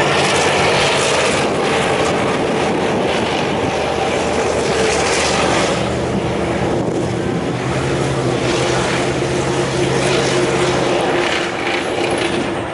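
Main battle tank driving past: a steady engine hum with track and running noise over it. The engine note drops in pitch about halfway through and fades near the end as the tank moves off.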